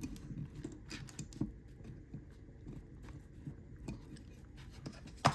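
Small metal clicks and scrapes from working a little sprung piece out of the bottom of a gutted safe lever lock's housing, with one sharp, louder click near the end.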